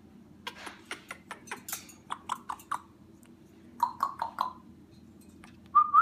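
Young Congo African grey parrot making a run of quick sharp clicks, then four short clipped notes about four seconds in. A louder short note rising in pitch comes at the end.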